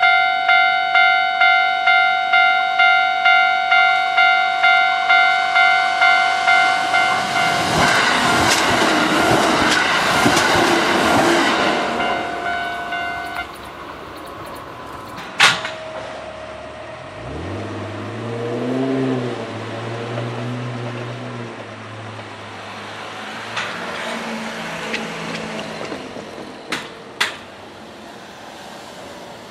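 Japanese level-crossing warning bell ringing about twice a second while a Kintetsu electric train rushes past with a swell of wheel and rail noise. The bell stops about halfway through, followed by a sharp click and then a low hum that rises in pitch, holds, and fades.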